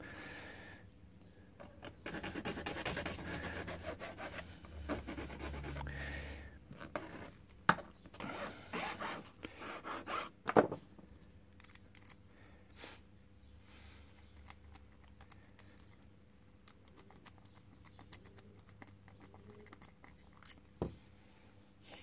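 A hand file scraping across a steel key blank in quick strokes for several seconds, cutting the pin positions while impressioning a padlock key. Near the middle comes a sharp click, then faint ticks as the blank is worked in the padlock's keyway.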